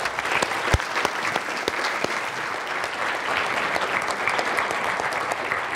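Audience applauding: many hands clapping in a steady stream of claps that holds at an even level.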